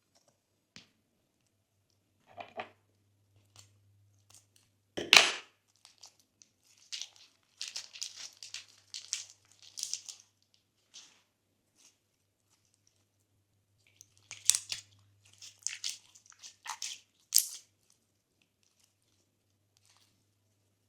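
Slime being worked by hand, making sticky crackles and small pops in two clusters, with one sharp, louder snap about five seconds in.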